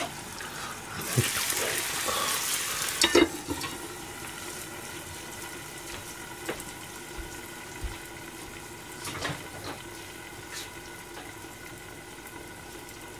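Cabbage and meat sauce sizzling in a lidded frying pan over a low flame. About a second in, the sizzle flares up loudly for two seconds and ends in a clank of the stainless lid. It then settles to a low steady sizzle with a few soft clicks.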